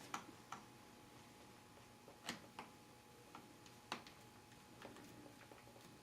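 Faint, irregular small clicks and ticks of a small screwdriver driving a screw into a laptop's plastic screen bezel, a few seconds apart.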